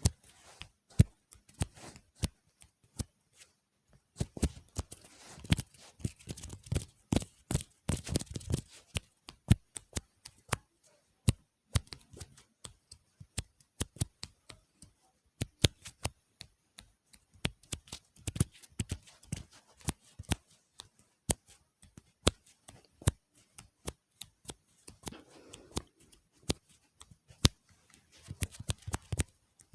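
Close-miked ASMR tapping and clicking on small objects: many quick, irregular sharp taps, with a stretch of softer rustling a few seconds in and again near the end.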